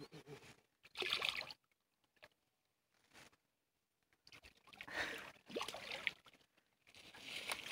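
Shallow water splashing and sloshing in short bursts as a hooked common carp is grabbed by hand at the water's edge, quiet in between.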